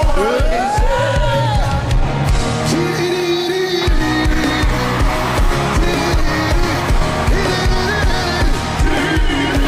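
Live worship music: a band with a steady drum beat under a singing voice, with one long note that rises and falls about a second in.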